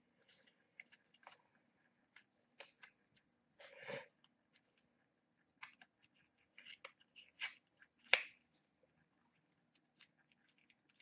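Faint, scattered clicks and crinkly rustles of figurine packaging being handled, with louder crinkles about four seconds in and again about eight seconds in.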